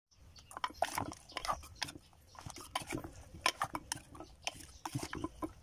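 Wooden pestle pounding and tossing vegetables in a mortar for som tam: irregular knocks and clacks, several a second, with a short lull about two seconds in.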